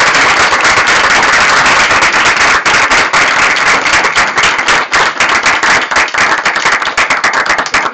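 An audience applauding: many hands clapping in a dense patter that thins out near the end.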